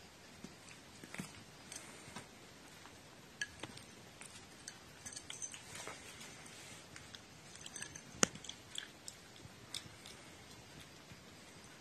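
Faint, irregular clicks and taps from a cat moving about a plate of food on tatami, with one sharper tap a little past the middle.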